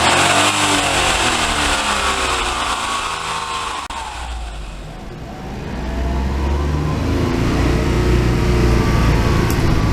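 Car engine and transmission while driving, in a car whose transmission has an abnormal noise and has been dosed with Maruyama molybdenum additive. A whine falls away at the start as the revs drop. There is a click about four seconds in, then the engine pulls up again with a steady low drone.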